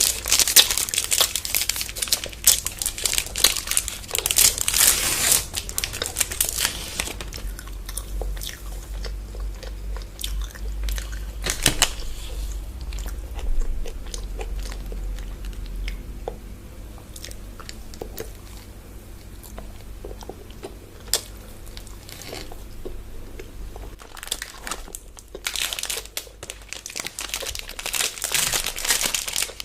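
Close-miked eating of crunchy chocolate bars: bites and chewing with crisp crunches, and plastic wrapper crinkling in the first few seconds and again near the end.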